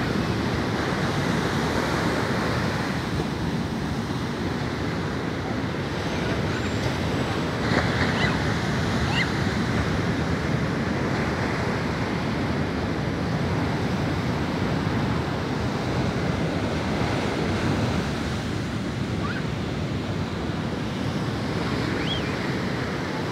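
Sea surf breaking steadily on a sandy beach, with wind buffeting the microphone.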